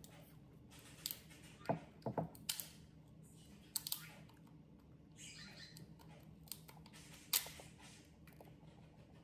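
Hard lobster shell being cut and cracked: irregular sharp clicks and cracks with a little rustling, the loudest crack about seven seconds in.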